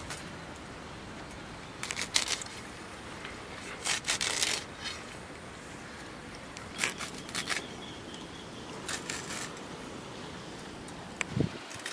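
Fresh leafy greens being sliced finely against an upright boti blade, in four short bursts of quick crisp cuts, with a soft low thump near the end.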